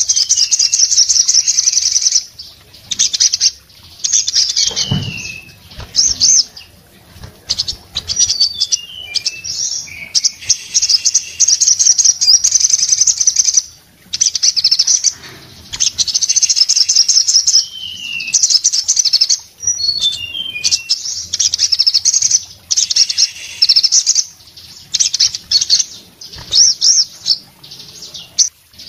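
Caged male olive-backed sunbird (sogon) singing loudly: rapid high trills in bursts of a second or two, broken by short falling slurred notes and brief pauses. A few wing flutters and a low thump from the bird on its perch come about five seconds in.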